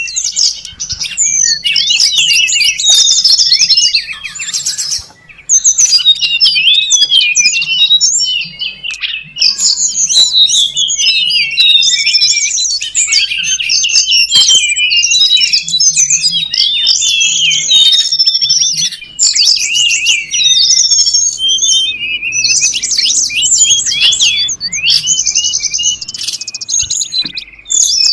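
Tledekan gunung birds calling in a dense, agitated stream of rapid high chirps and twitters, as used in a lure recording to draw in wild birds. There are brief pauses about five seconds in and again near nineteen seconds.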